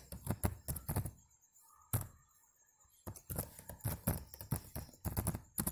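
Typing on a computer keyboard: quick runs of keystrokes, with a pause of about two seconds after the first second.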